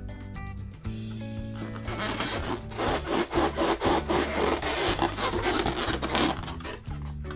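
Background music with a steady beat. From about two seconds in until about six seconds, a loud scratchy rubbing sound over the music: hands rubbing a latex balloon.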